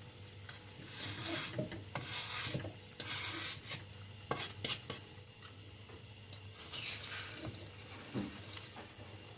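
Wooden spatula stirring a pan of sugar-crusted peanuts in repeated strokes. The dry, sugar-coated nuts scrape and rustle against the metal pan, with a few sharp clicks.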